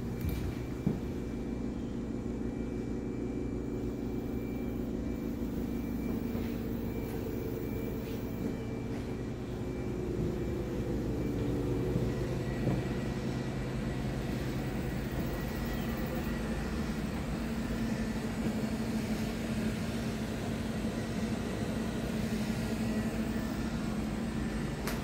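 A steady low background rumble with a faint hum, unchanging throughout, and a small click about a second in.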